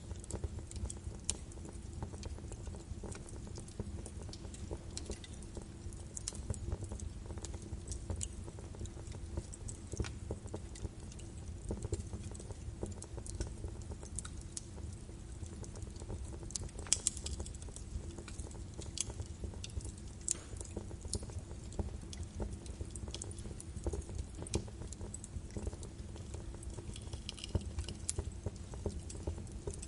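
Birch wood fire burning in a fireplace, with a steady low rumble of the flames and irregular sharp crackles and pops, a few louder snaps scattered through.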